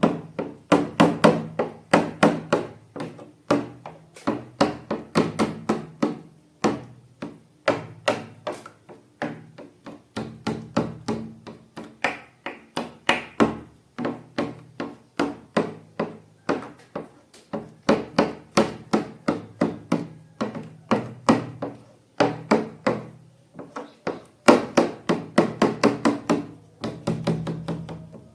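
Background music of quick struck, wooden-sounding pitched notes, about three to four a second, with a short break about two-thirds of the way through.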